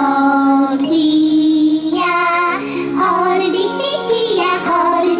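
Children's hand-play song played over a stage sound system: a high, childlike sung melody of held notes that step up and down, over backing music.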